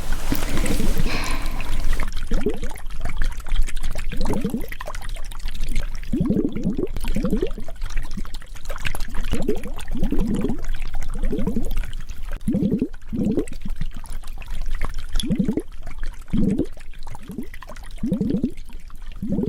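Close-miked wet chewing, a moist squelching chew about once a second, with a brief hiss at the start.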